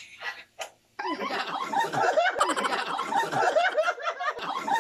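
A group of people bursting into laughter about a second in, several voices laughing over one another.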